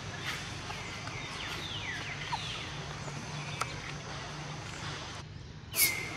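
Outdoor ambience with a steady low hum and many faint, high, falling chirps. Near the end a single short, loud, high-pitched call rings out.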